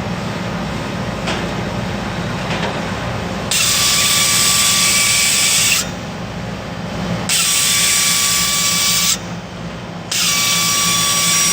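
Compressed nitrogen blowing through a nozzle in three bursts of about two seconds each, a loud hiss with a steady whistle, to clean a clogged condenser coil, over a steady low machine hum.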